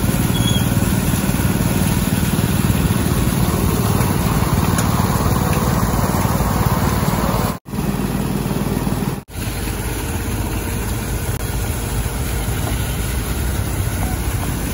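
Several small petrol-engine water pumps running together at a steady drone, with water gushing from their discharge hoses as they dewater a sandbag cofferdam. The sound drops out briefly twice in the middle.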